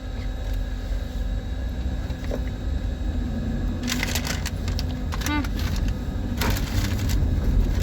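Car running with a steady low rumble heard from inside the cabin as it sets off, with a few short rattling, squeaky noises about four and six and a half seconds in.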